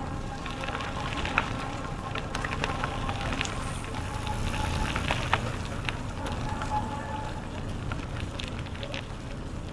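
Bicycle rolling along a trail: the tyres crackle over the path surface with many scattered small clicks and ticks, over a steady low rumble.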